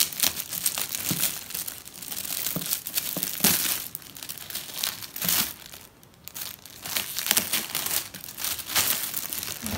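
Shiny gift-wrapping paper crinkling and tearing as a present is unwrapped by hand, in irregular rustles with a short lull about six seconds in.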